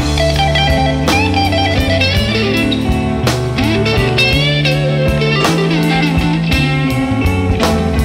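Background music led by guitar, with a melody of bending, sliding notes over steady bass notes and a regular beat.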